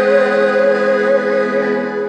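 A man singing one long held, slightly wavering note into a microphone over steady sustained piano accordion chords, closing a folk song.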